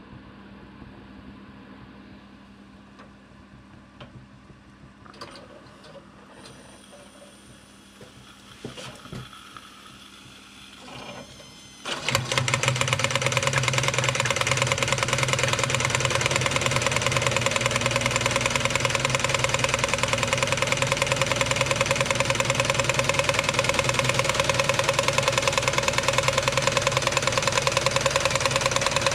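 Wilesco D145 toy steam engine and its belt-driven workshop models: quiet at first with a few small clicks while the boiler heats, then about twelve seconds in the engine starts suddenly and runs with a loud, fast, even mechanical clatter.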